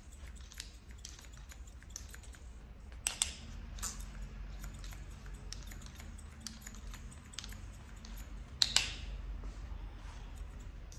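Barber's scissors snipping hair over a comb, a quick run of light clicks with a few louder snips among them.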